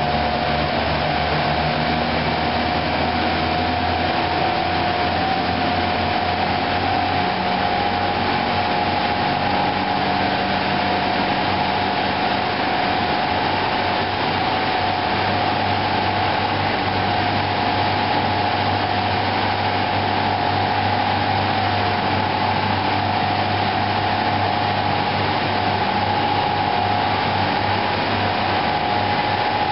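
Turbocharged 2.0-litre 16-valve four-cylinder engine of an Alfa Romeo 145 idling on a chassis dyno, together with the dyno's large cooling blower running. The sound is loud and steady, with a constant whine over it and no revving.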